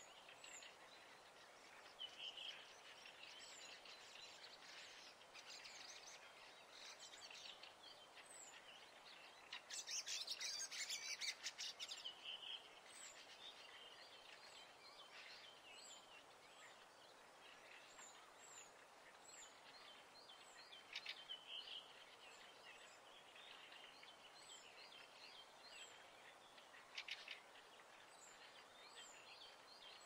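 Faint birdsong: small high chirps and twittering over a soft hiss, with a louder burst of rapid calls about ten seconds in.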